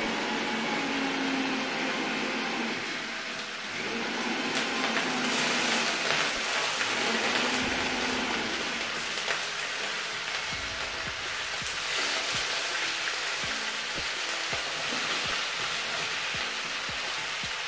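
Chicken pieces marinated in ginger-garlic, turmeric and salt frying in oil in an aluminium kadai, a steady sizzle that grows louder for a few seconds near the middle. A music track plays under it.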